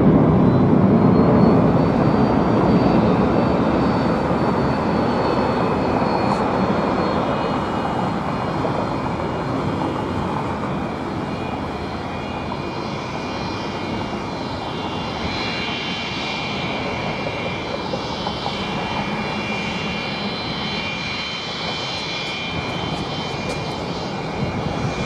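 Rear-mounted jet engines of a Delta McDonnell Douglas MD-80-family airliner running at taxi power: a steady jet rush with a high engine whine. The rush eases off over the first dozen seconds, and the high whining tones grow clearer in the second half.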